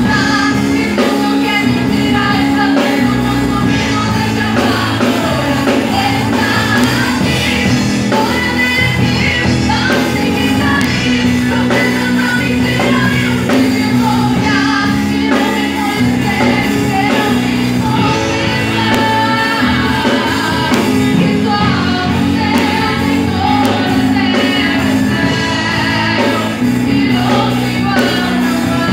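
A girl singing a Portuguese worship song into a microphone, amplified through loudspeakers, over keyboard and drum accompaniment.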